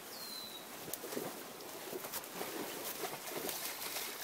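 A bird gives one short whistle falling in pitch near the start, over the steady hiss of a flowing creek and low, irregular rustling.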